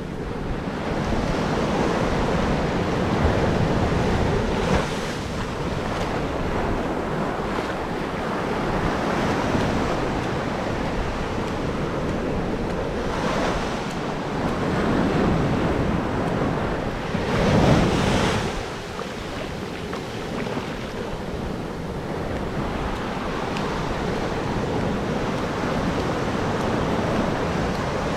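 Ocean surf breaking and washing on a beach, a steady rush of waves that swells and eases, loudest about eighteen seconds in, with wind buffeting the microphone.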